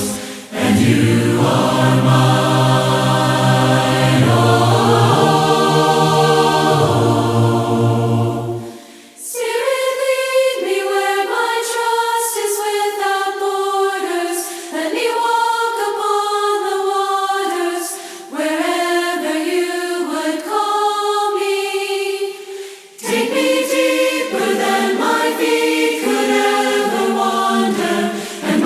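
Choir singing a hymn a cappella. Low voices drop out about nine seconds in, leaving higher voices singing phrases with short pauses between them.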